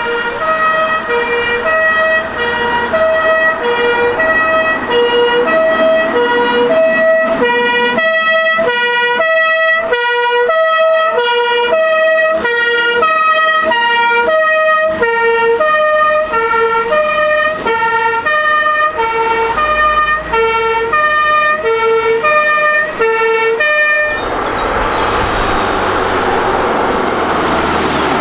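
German emergency vehicle's two-tone siren (Martinshorn, 'tatü-tata') sounding loudly, its two notes alternating about every half second. Near the end the siren cuts off, leaving the vehicle's engine and tyre noise.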